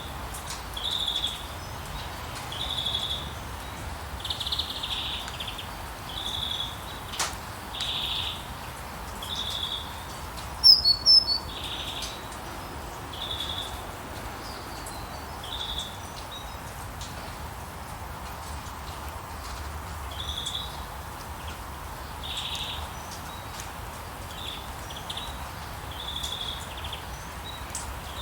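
Steady rain hiss with a bird repeatedly giving short high calls every second or two, the calls fainter in the second half. A louder quick cluster of higher chirps comes about a third of the way in.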